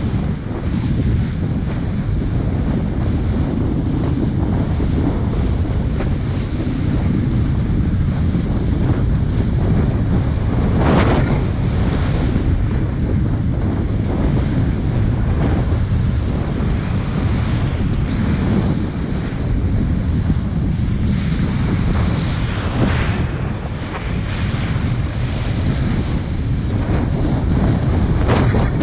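Strong wind buffeting the microphone over rushing water while kitesurfing. A few brief louder swishes stand out, about eleven seconds in, a little after twenty seconds, and near the end.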